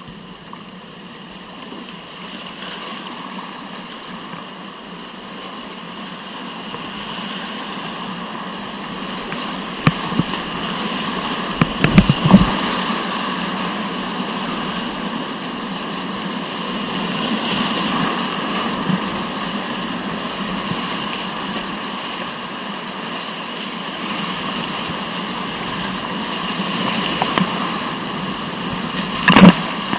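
River rapids rushing, growing steadily louder over the first ten seconds or so and then holding. A few sharp knocks stand out about ten and twelve seconds in and again near the end.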